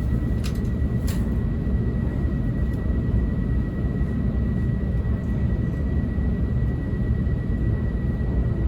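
Cabin running noise of a JR East E2 series Shinkansen car under way: a steady low rumble with a thin, steady high tone above it, and two short clicks about half a second and a second in.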